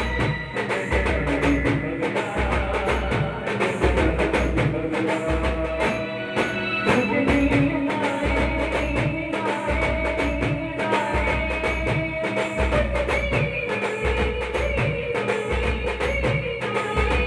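Live Indian band music through a loudspeaker system: a keyboard melody and electronic pad drums over a steady bass beat, with a male singer singing into a microphone.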